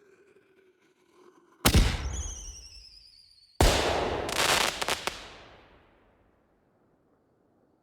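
Explosion sound effect. A faint falling tone fades out, then a sharp bang comes about one and a half seconds in, followed by a high falling whistle. A second, louder bang with a crackling tail then dies away over a couple of seconds.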